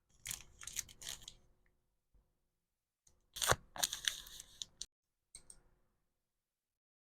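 Packaging material being handled while packing an order: crinkling, crackling and tearing sounds in three bursts, the middle one loudest with a sharp click, near silence between them.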